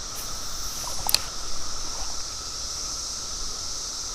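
Creek water running steadily, with one sharp click about a second in.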